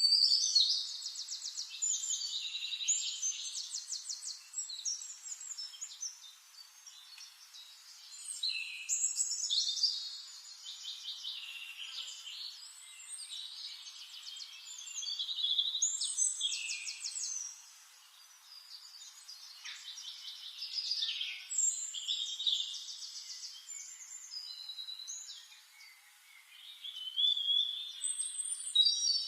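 Songbird singing: high-pitched phrases of rapid trills and short whistled notes, a new phrase every few seconds.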